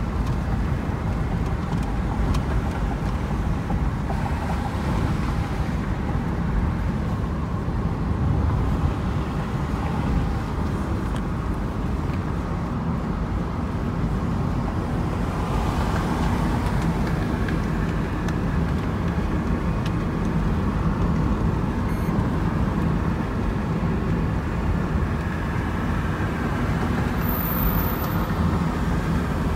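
Steady road noise of a moving car: a continuous low rumble of engine and tyres that holds even throughout.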